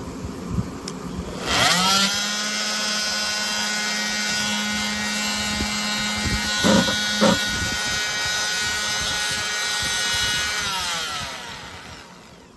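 Corded oscillating multitool motor spinning up about a second and a half in and running at a steady pitch, with two short louder bursts near the middle, then winding down and fading near the end.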